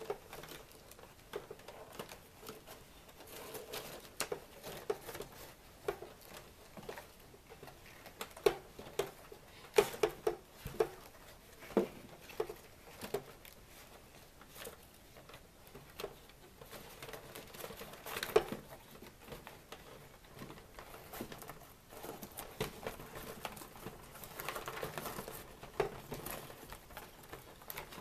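Hands working a cardboard box insert and its string ties: scattered light taps, clicks and scrapes of cardboard, with longer stretches of rustling around eighteen seconds in and again near the end.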